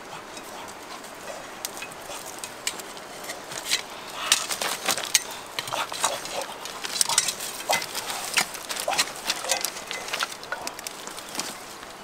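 Dry leaves and twigs crackling and snapping as people walk and push through brittle undergrowth. The crackles are irregular, sparse at first and busiest in the middle of the stretch.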